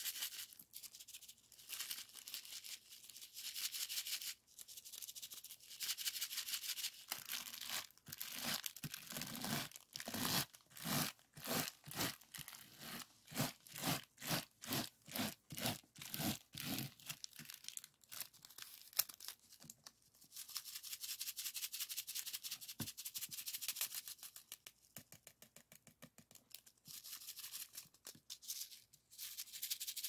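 A clear plastic piece rubbed back and forth over the faceted resin drills of a finished diamond painting, making a crackly, scratchy rasp. In the middle it becomes quick, even strokes, about two a second, and later it settles into a steadier scratchy rub.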